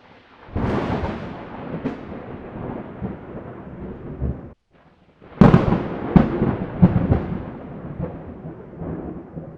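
Two booming, rumbling intro sound effects. Each starts with heavy low hits and dies away, and a brief silence cuts them apart just under halfway in.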